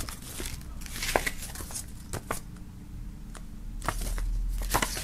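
Paper pages of a CD booklet being turned by hand: a series of short rustles and flicks of paper.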